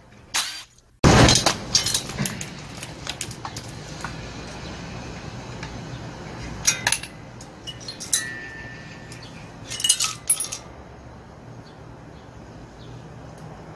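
Metal engine parts clinking and knocking as the cylinder of a two-stroke blower engine is unbolted and lifted off, with a louder burst of noise about a second in and a few sharp clinks later, over a low steady hum.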